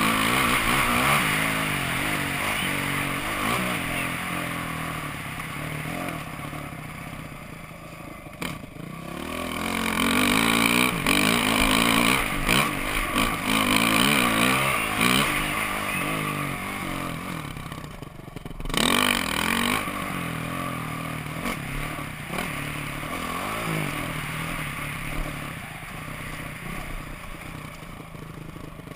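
Dirt bike engine revving hard and easing off over and over as it is ridden on a steep dirt track, heard from a helmet-mounted camera. The throttle closes briefly twice, about a third and two thirds of the way through.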